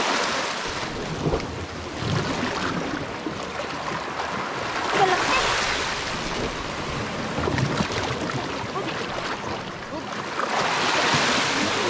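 Sea waves washing against a rocky shoreline, swelling in surges near the start, around the middle and again near the end.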